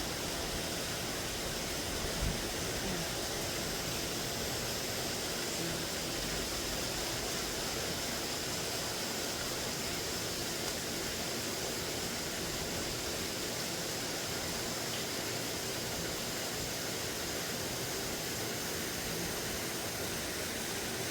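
Steady hiss of falling rain, with one brief low knock about two seconds in.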